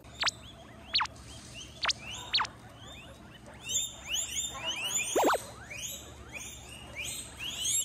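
Guinea pigs squealing: a few sharp, high squeaks falling in pitch in the first seconds, then from about four seconds in a run of repeated rising whistles, two or three a second.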